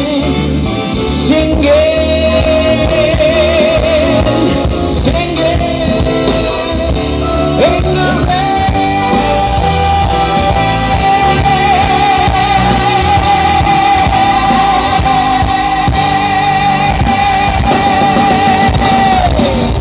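Male singer performing live with a rock band, with guitar and drums underneath. After a few shorter sung notes he holds one long note with vibrato for about ten seconds, then slides down off it near the end, closing the song.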